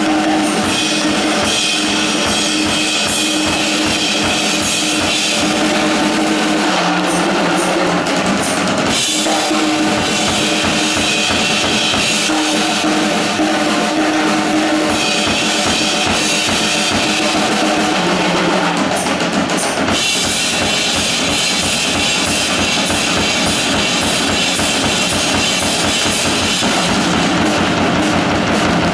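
Music track with a drum kit keeping a steady beat, in several sections that shift every few seconds.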